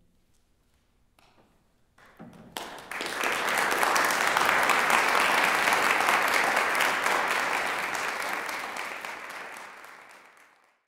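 Audience applauding in a hall: a few scattered claps at first, swelling to full applause about three seconds in, then dying away near the end.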